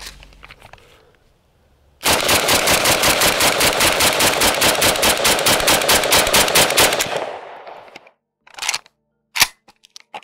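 IWI Galil Ace II pistol in 7.62x39 fired in a rapid semi-automatic magazine dump: a fast, even string of loud shots, about seven a second, that starts about two seconds in and stops after about five seconds as the magazine runs empty. A few short sharp clacks of the gun being handled follow near the end.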